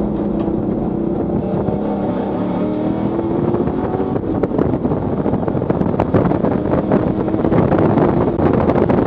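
Engine and road noise inside the stripped, roll-caged cabin of a Ford Mustang track car: the engine note holds under braking into a corner for the first few seconds, then grows louder about four seconds in as the car accelerates hard. Sharp rattles and clicks from the bare cabin ride over it.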